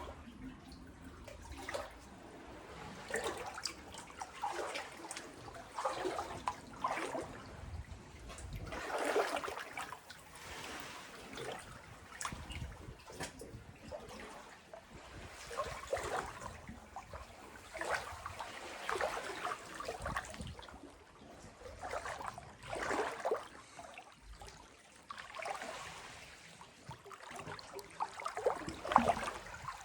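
Sea water lapping and splashing in small irregular surges every second or two.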